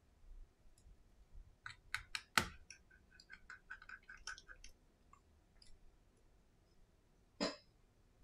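Quiet clicks and taps from fingers working inside an opened iPhone 11 with its display lifted during a screen replacement. There is a sharp click about two and a half seconds in, a run of faint ticks after it, and another click near the end.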